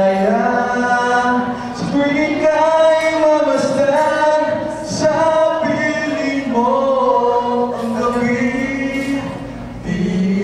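A man and a woman singing a duet into handheld microphones, holding long notes, often together.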